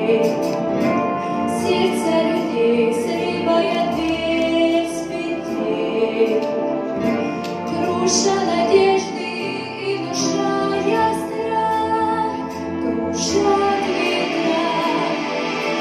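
Backing-track music playing the song's introduction: held, melodic chords before the vocal line enters.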